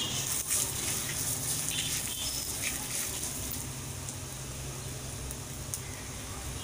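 Coriander seeds, cumin and dried red chillies roasting in a little oil in a clay pot, giving a soft steady sizzle, with a few faint scrapes and clicks of a wooden spatula moving the spices.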